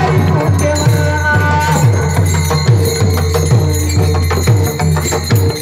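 Pakhawaj drum beaten in a fast, steady devotional rhythm of about three strokes a second, with small hand cymbals jingling over it.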